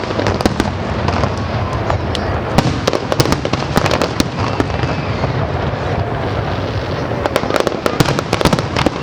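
Fireworks display: a continuous din of aerial shell bursts with many rapid crackling reports, thickest from about two and a half to four seconds in and again near the end.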